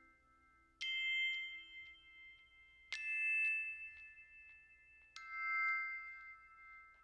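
Background music: three bell-like struck notes about two seconds apart, each ringing on and fading slowly.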